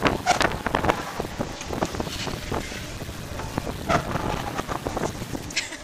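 Wind rushing over the camera microphone on a swinging pirate-ship ride, broken by frequent short knocks and rattles.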